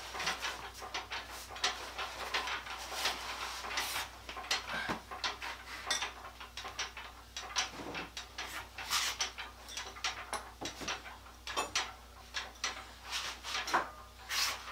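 Scattered light metal clinks and knocks of hand tools and hardware being handled on a concrete floor, at irregular intervals.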